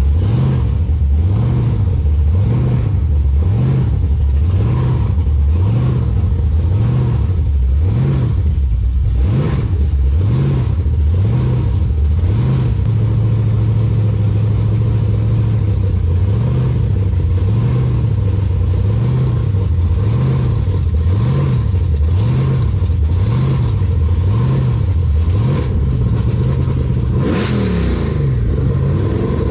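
Car engine revving hard, its pitch swinging up and down about once a second, held steady for a couple of seconds midway, then rising quickly near the end.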